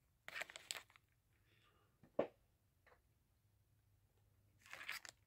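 Small replacement parts being handled and rummaged through: a short rustle, one sharp click about two seconds in, and another rustle near the end.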